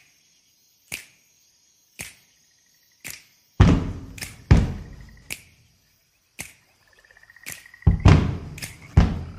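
Instrumental intro of the dance track: sharp clicks about once a second, then, from about three and a half seconds in, deep heavy bass thumps mixed with sharp percussive hits and a faint high electronic tone.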